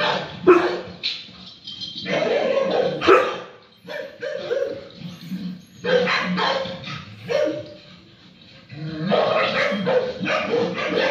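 Akita Inu barking in a run of barks, with a pause of about a second shortly after the middle.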